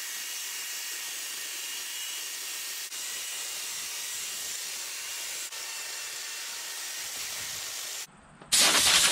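A homemade flap sander spun by an electric drill, abrading carved poplar: a steady hiss with a faint whine. It breaks off briefly near the end and comes back louder with a fast rattle.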